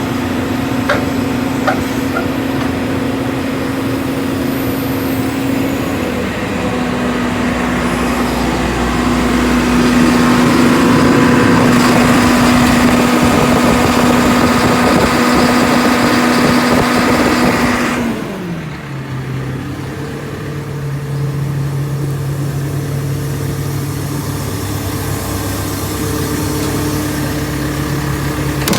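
Diesel engine of a JCB 220X tracked excavator running steadily at high revs. About two-thirds of the way through, the revs fall quickly and the engine settles to a steady low idle.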